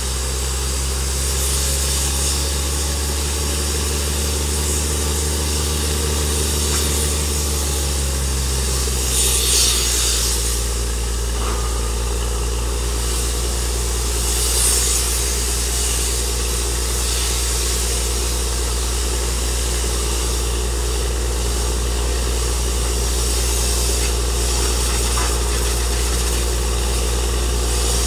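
Truck-mounted borewell drilling rig running steadily, its engine and drilling gear working without a break. The engine note shifts lower about eight seconds in, and there are two short bursts of hissing, near ten and near fifteen seconds.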